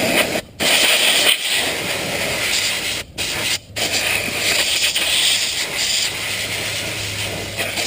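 A loud, steady rushing hiss over a faint low hum, cutting out briefly four times in the first four seconds.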